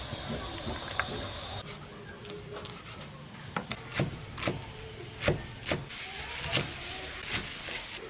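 A knife or cleaver chopping on a wooden cutting board, about a dozen irregular chops, the cutting of the chicken.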